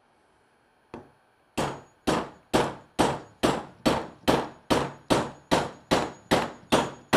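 Small hammer tapping on a bolt head to drive an oil pump into an aluminium gear housing: after one light tap, a very even run of about a dozen sharp metallic taps, a little over two a second, each with a short ring. Gentle taps, seating the pump in its groove.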